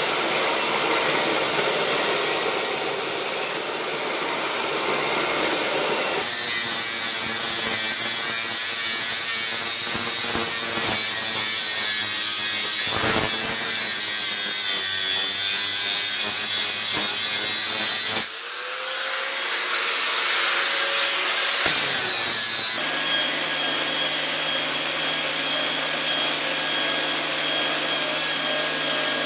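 Steel knife blade being ground on a belt grinder, the abrasive belt rasping steadily against the steel over a motor whine. In the middle stretch an angle grinder's disc grinds the blade instead, and the sound changes abruptly several times where the shots are cut together.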